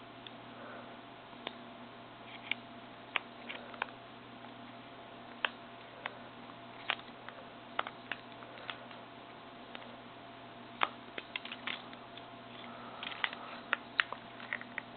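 Irregular small sharp clicks and taps of a thin prying tool working around the plastic housing of an LG Chocolate VX8500 phone, lifting an internal panel held by clips and glue, with clicks bunching together towards the end. A faint steady hum runs underneath.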